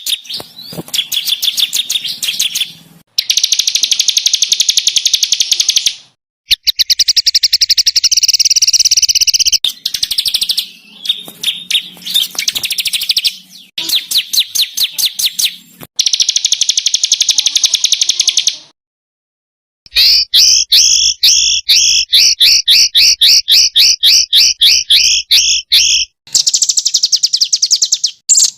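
Caged songbirds singing in loud, rapid-fire bursts of very fast repeated high notes, the aggressive 'tembakan' song style. The bursts come in several spliced segments separated by short breaks, with about a second of silence near two-thirds of the way through.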